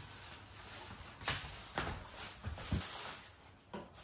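A person's footsteps and a few soft knocks with some rustling, ending with her settling onto a fabric sofa.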